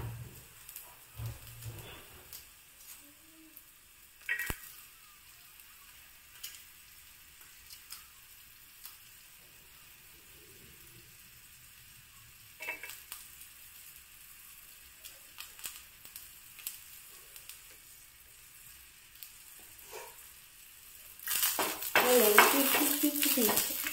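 Garlic cloves dropped one at a time into a flat pan of green chillies, a few light taps, then near the end a wooden spatula scraping and stirring the chillies and garlic around the pan.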